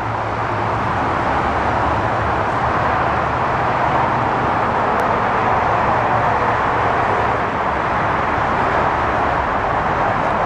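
A Honda CR-V's 2.4-litre four-cylinder engine idling as a steady low hum under an even outdoor hiss that does not change.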